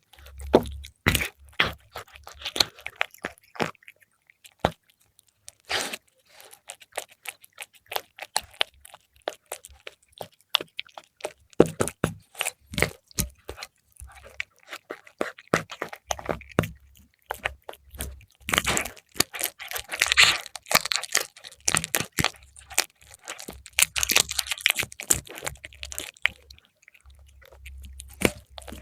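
A cat chewing and crunching fried milkfish, in irregular bursts of sharp crunches and wet chewing clicks with short pauses, busiest in the second half.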